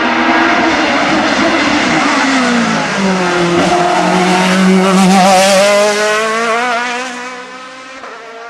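Racing car engine at a hillclimb going past at close range. Its note drops sharply about two seconds in, then holds, loudest about five seconds in, and it fades as the car moves off near the end.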